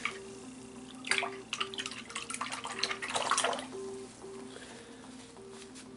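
A paintbrush swished and tapped in a cup of rinse water, in two short bouts about a second and three seconds in, over soft background music with a simple repeating melody.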